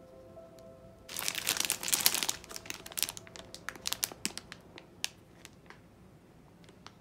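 Clear plastic bag of kiwifruit crinkling as it is picked up and handled. There is a loud burst of crinkling for about a second, then scattered crackles that die out about five seconds in. Soft background music plays underneath.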